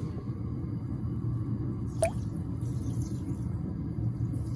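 Gas stove burner running with a steady low rumble under a pot of coconut milk, and one short click about two seconds in.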